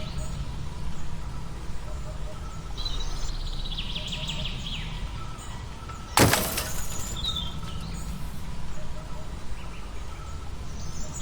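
Small birds chirping in short bursts over a steady low rumble, with one sharp knock about six seconds in.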